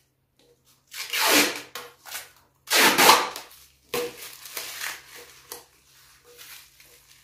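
Protective plastic film being peeled off a tray lid, crackling and crinkling in several bursts, the loudest about three seconds in.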